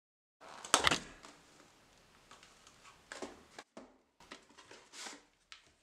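A Christmas cracker's ecosnap going off with a single sharp pop as the cracker is pulled apart, a quieter pop than a standard snap's bang. It is followed by softer rustling and crinkling of the card halves being handled.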